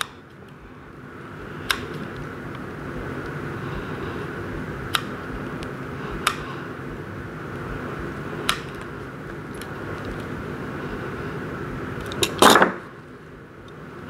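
Quiet hand work at a craft table: a few faint sharp clicks, spaced a second or more apart, over a steady low room hum. About twelve seconds in comes a brief louder clatter, metal sewing scissors being set down on the table.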